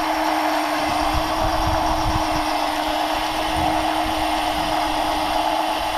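A motor running steadily, holding one unchanging pitch, over a haze of noise and low rumble.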